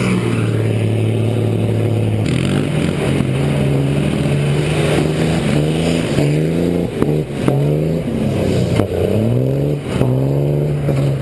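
Pickup truck engine held at steady revs for a couple of seconds, then revving up and dropping back over and over as the truck spins its tires in the mud, with a few sharp clicks of flung dirt or gravel.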